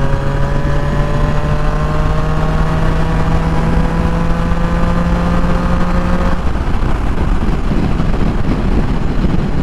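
Triumph Tiger Sport 660's three-cylinder engine pulling under steady acceleration, its pitch rising slowly. About six seconds in, the engine note drops out suddenly, leaving a loud rush of wind and road noise on the microphone.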